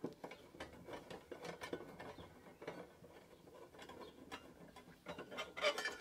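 Screwdriver backing out a small screw from the gas-burner cover of a caravan fridge: a run of faint, irregular light clicks of metal on metal.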